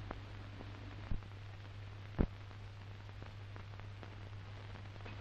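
Background noise of a 1940s film soundtrack during a pause in the narration: steady hiss with a constant low hum, broken by a few short clicks, the loudest a little after two seconds in.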